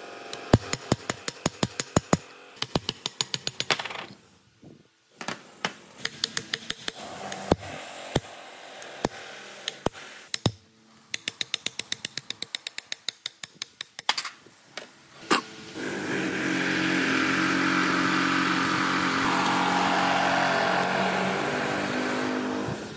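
Restoration work on metal parts: runs of quick sharp clicks or taps, several a second, for about fifteen seconds, then a power tool's motor starts and runs steadily to the end.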